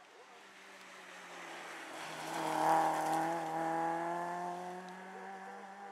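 Rally car engine running hard on a stage, swelling to its loudest about three seconds in, then fading with a slowly falling note.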